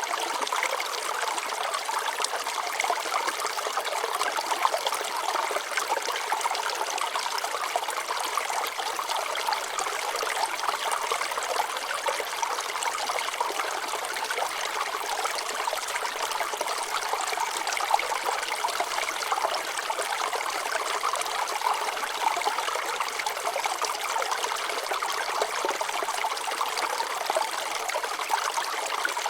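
Shallow water flowing and trickling over rocks: a steady, even babble with no change over time.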